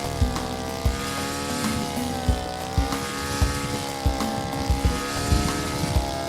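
Petrol engine of a garden multi-tool running at high revs under cutting load, its pitch wavering up and down, with repeated low thumps.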